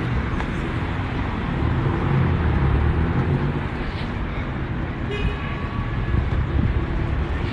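City street traffic: cars passing on a busy downtown street, a steady rumble of engines and tyres.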